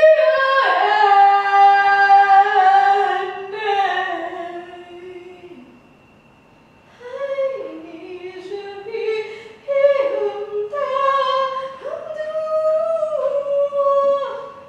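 A woman's voice singing a cappella in long held notes that slide slowly from pitch to pitch, falling quiet for about a second midway before rising again.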